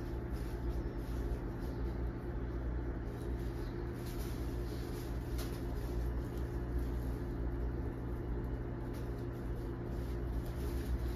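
A steady low machine hum runs without change, with a few faint light clicks now and then.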